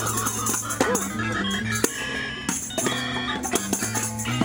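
Music with a stepping bass line, higher melodic notes and sharp percussive clicks.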